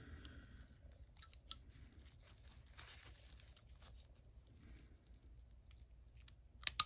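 Nitrile gloves rustling with small metal scrapes and ticks as a retaining ring is worked around the head of a 3/8-inch-drive ratchet. Two sharp clicks come close together near the end and are the loudest sounds.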